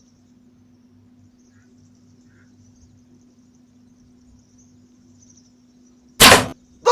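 Crickets chirring faintly and steadily, then near the end one sudden loud crack of a bow shot at a deer.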